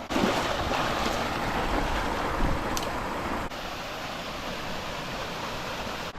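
Steady rush of creek water over rocks at a small waterfall, a little louder in the first half.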